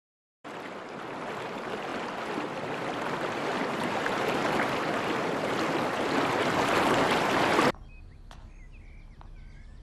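Rushing river water, a steady noise that grows louder over about seven seconds and then cuts off abruptly, leaving a quiet room tone with a couple of faint ticks.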